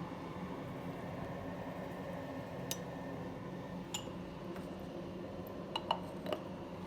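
KitFort KT-601 electric kettle heating water with a steady noise. There are a few light clicks and clinks, twice in the middle and a cluster near the end.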